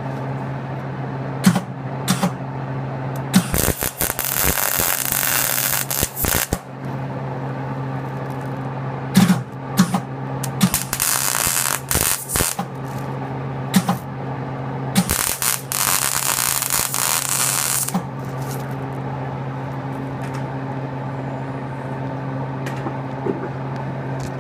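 Electric welder laying three short tack welds on the edge of a steel wheel rim: three crackling bursts of arc, each lasting one to three seconds, over the welder's steady hum, with a few clicks in between.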